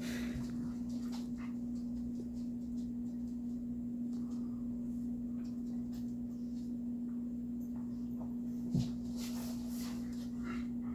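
A steady low hum with faint scattered ticks, and a single brief knock about nine seconds in.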